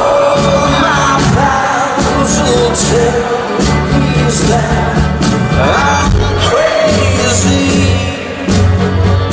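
Live rock band playing a slow ballad, with a male lead voice singing long, gliding notes over bass, guitar and drums; the voice swells near the start and again about six seconds in.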